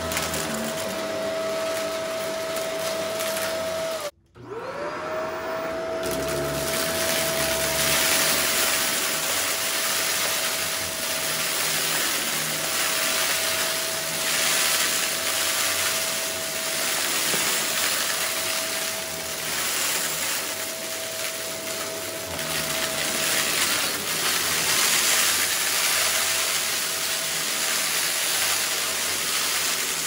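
Shark stick vacuum running with a steady motor whine; about four seconds in it cuts out for a moment and spins back up, rising in pitch. After that, small rocks rattle and crackle as they are sucked up through the floor head passing over a rug.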